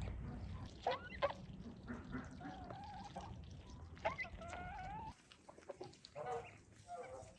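Chickens clucking and calling in a yard: a string of short calls, a few drawn out at a steady pitch, over a low background rumble that drops away about five seconds in.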